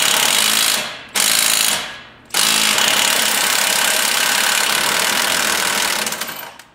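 Pneumatic air hammer with a pickle fork bit rattling against a stuck tie rod end to split it from the steering knuckle. It runs for about a second, gives a short burst, then hammers for about four seconds more before stopping.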